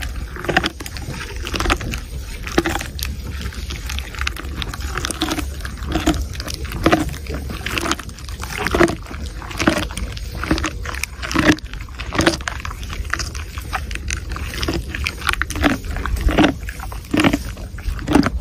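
A camel chewing thorny twigs at close range: wet, crunching chews repeating a little over once a second, over a steady low rumble.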